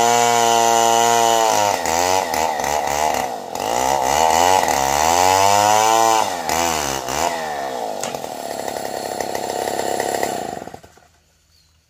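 Petrol chainsaw at full throttle cutting through a felled durian log. Its pitch sags and recovers several times as the chain bites. It drops to a lower, quieter running after about eight seconds and stops about a second before the end.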